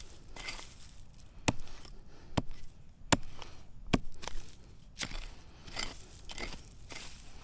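A digging tool chopping into the ground: five sharp strikes less than a second apart, with softer noises between them.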